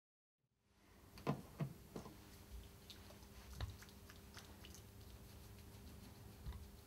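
Hands rubbing together with alcohol-based hand rub, giving soft wet clicks and smacks. A few sharper clicks come in the first two seconds, over a faint steady hum.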